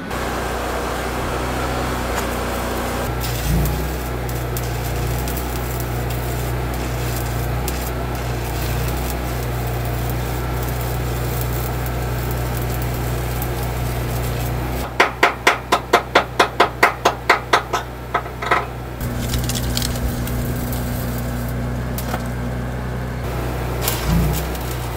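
Engine-driven Lincoln welder-generator running steadily with a constant hum. About fifteen seconds in, a quick run of about a dozen loud, evenly spaced pulses cuts across it for a few seconds, and there are a couple of single thumps.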